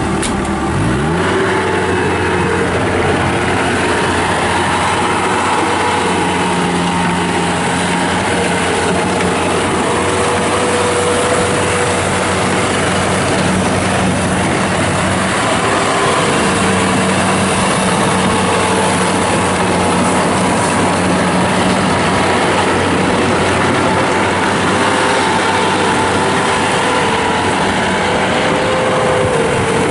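Kubota diesel engine of a Bobcat T180 rubber-track skid steer loader running steadily while the machine is operated, its pitch shifting slightly now and then.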